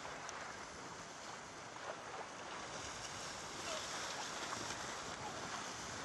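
Steady rush of wind and choppy sea water.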